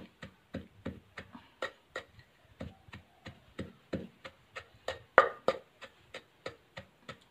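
Wooden pestle pounding roasted dried chilies in a mortar, grinding them into chili powder: steady knocks about three a second, with two heavier strokes about five seconds in.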